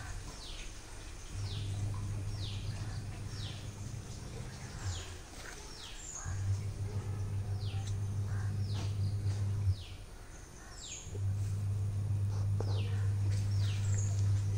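Birds calling: short high calls that each slide down in pitch, repeated about once a second, over a low hum that switches on and off in three stretches of a few seconds.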